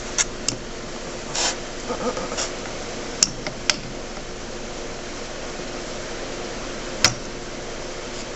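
Scattered clicks, knocks and a brief scrape of hand tools and wood being handled, over a steady background hum; the sharpest clicks come about three, three and a half and seven seconds in.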